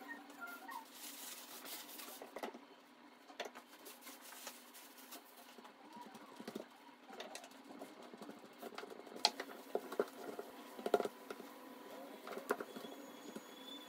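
Hands patting, pressing and folding a block of puff pastry dough on a silicone baking mat: faint soft pats and rustles with scattered light taps, and a few sharper knocks about nine and eleven seconds in.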